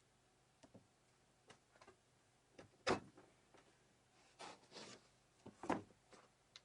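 Faint, scattered knocks and clicks, as when tools or wooden parts are handled. The two sharpest knocks come about three seconds in and near the end, with a short scraping rustle between them.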